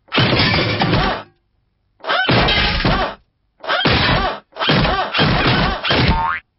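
Cartoon song soundtrack mixed with slapstick hits and crashes. It comes in four loud chopped bursts, each cut off suddenly into dead silence.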